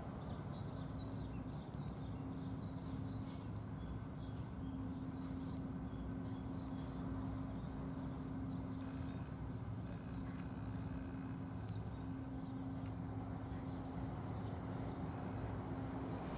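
A steady low mechanical hum, with many faint, short, high chirps of small birds through roughly the first ten seconds that then thin out.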